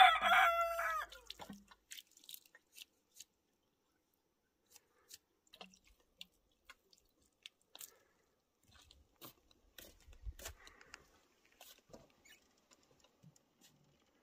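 The end of a rooster's crow, a long pitched call that falls away about a second and a half in. After it come faint scattered clicks and light splashes of water poured from a plastic ewer onto the ground.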